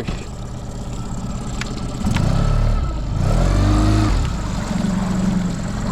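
Small boat outboard motor running; its pitch drops about two seconds in and revs back up a second later, then it settles into a steady hum. A couple of sharp clicks come just before the revs change.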